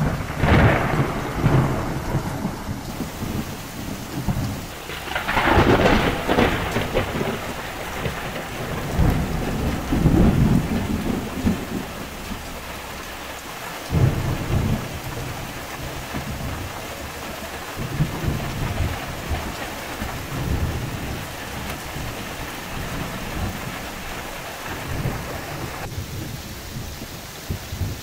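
Heavy rain falling steadily, with thunder rumbling again and again. The loudest rolls come right at the start and about five to seven seconds in, and a sharper clap breaks in about fourteen seconds in.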